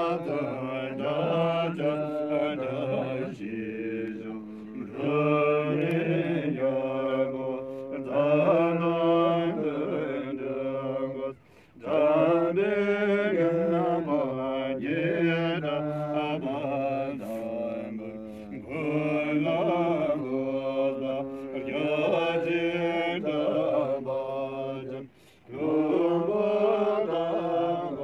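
Buddhist monks chanting prayers in a slow, melodic Tibetan-style chant with long held notes, pausing briefly for breath twice, about a third of the way in and again near the end.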